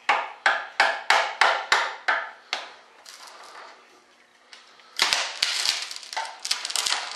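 Small hammer tapping a wooden board to knock it loose from a fibreglass mold: about nine sharp knocks, roughly three a second, then after a short pause a faster run of knocks and clatter about five seconds in.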